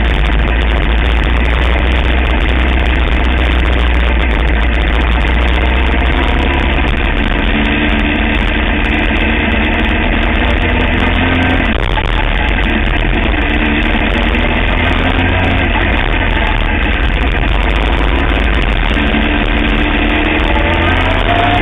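Sportbike engine running on a racetrack, its pitch rising and falling with the throttle, under a constant heavy rush of wind on the camera.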